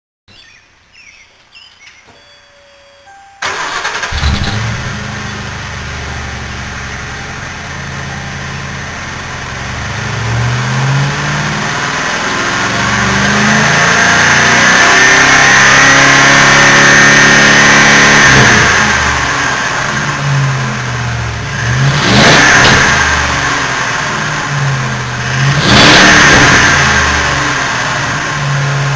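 Ford Crown Victoria's 5.4 V8 running through Dynomax Ultra-Flo SS stainless mufflers. The exhaust comes in suddenly a few seconds in and idles, then climbs into a long held rev in the middle. It settles back and gives two quick throttle blips near the end.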